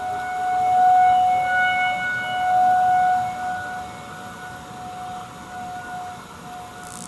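Outdoor tornado warning siren sounding a steady tone at one held pitch, swelling louder and fading back twice in the first few seconds, then weaker.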